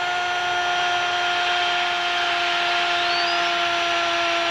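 A TV football commentator's long, drawn-out goal call: one shouted vowel held on a single steady pitch, over the noise of a stadium crowd.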